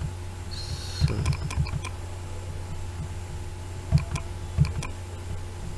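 Scattered clicks of a computer mouse and keyboard: a quick cluster about a second in and two sharper single clicks near four seconds in, over a steady low hum.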